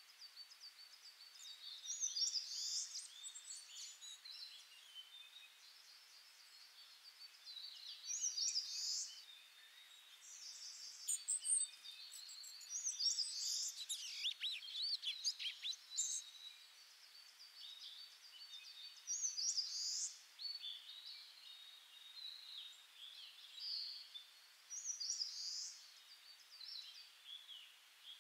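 Small birds chirping and calling in short bursts of high chirps, some with quick falling glides, over a faint steady hiss.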